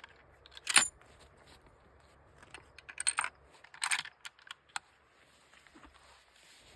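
Rifle being handled by a prone shooter: one sharp click a little under a second in, then short clusters of clicks and rattles around three and four seconds in. It is metal-on-metal handling noise, not the shot.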